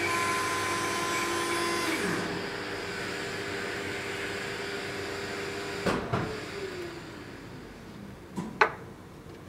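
A steady motor hum with whining tones stops about two seconds in and winds down, leaving a fainter hum. Later come two pairs of sharp knocks as small handle blocks are set down and stacked on the workbench.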